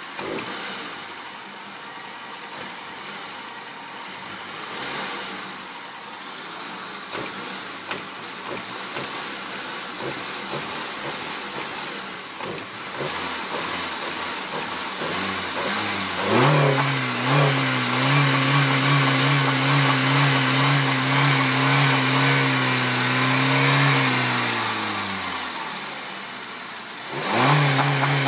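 A 1999 Saturn SC2 running under its open hood. About 16 seconds in, a loud steady hum sets in and holds for some eight seconds. It then sinks in pitch and fades over a couple of seconds, and comes back quickly near the end.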